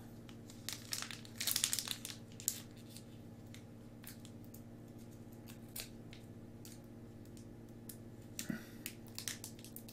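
Foil wrapper of a Pokémon card booster pack crinkling as it is handled, in short irregular rustles, loudest about one and a half to two and a half seconds in, with a few more rustles near the end.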